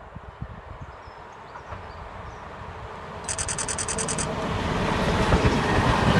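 A 1700/1800-class electric locomotive hauling a Kirow rail crane wagon approaches and passes. The wheels run on the rails, growing steadily louder.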